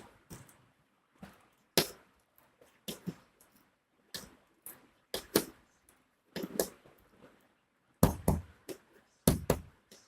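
Irregular plastic clicks and clacks of a reassembled 3x3 Rubik's cube being handled and its layers turned, with a few louder knocks among them.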